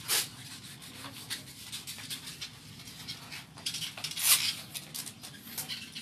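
Scattered rubbing and rustling sounds with small clicks, the loudest rustle about four seconds in.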